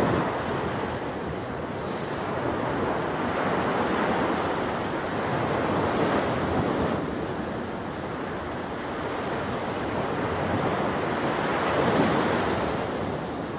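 Sea waves breaking on a beach: a steady rush of surf that swells and eases every few seconds.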